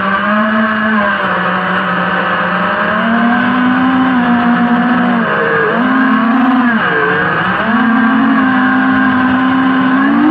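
FPV quadcopter's brushless motors and propellers whining, the pitch stepping up and down with throttle and dropping sharply twice past the middle before coming back up.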